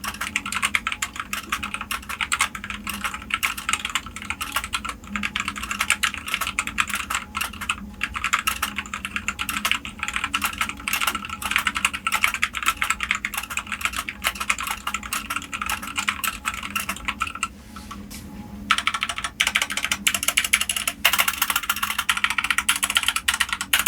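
Continuous typing on a Magic Refiner MK14 65% mechanical keyboard with B-Sun red linear switches: a dense run of keystroke clacks, broken by a pause of about a second roughly three-quarters of the way through.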